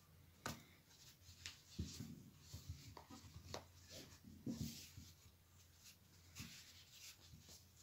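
Faint rubbing and rustling of hands handling crocheted yarn shorts on a stuffed amigurumi doll, with scattered soft clicks and taps.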